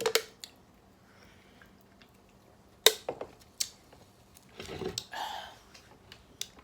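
Scattered short, wet mouth clicks and smacks of someone eating close to the microphone, with a brief breathy rustle about five seconds in.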